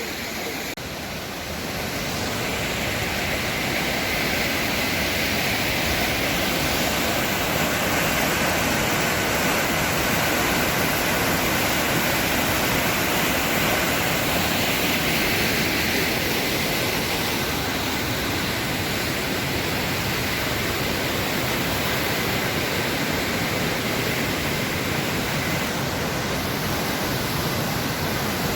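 Upper Düden Waterfall's water rushing and crashing, a steady dense noise of falling water that grows louder about two seconds in and then holds even.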